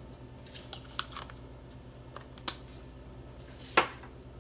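Small clicks and taps of spice containers being set down and picked up on a kitchen counter, with one sharp click near the end, over a steady low hum.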